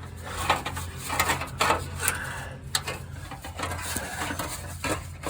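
Loose exhaust heat shield under a Toyota Tundra being shifted by hand: thin sheet metal clicking and scraping irregularly. Its corroded mounting nuts and bolts have fallen apart, which is what let it rattle.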